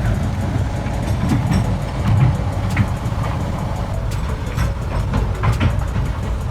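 Bucket wheel excavator working: a steady, heavy low rumble of machinery with irregular metallic clanks and knocks scattered through it.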